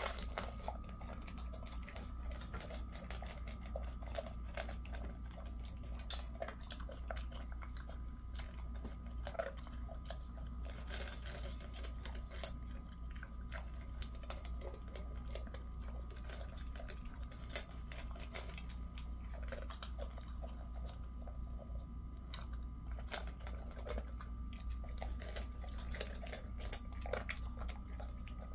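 A Jindo dog eating dry kibble from a stainless steel bowl: irregular crunching and chewing, with sharp clicks of kibble and muzzle against the metal.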